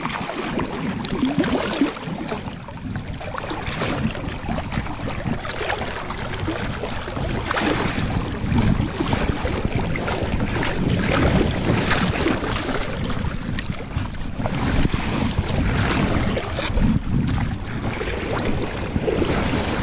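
River water splashing and sloshing as a person wades and runs through the shallows, with wind noise on the microphone.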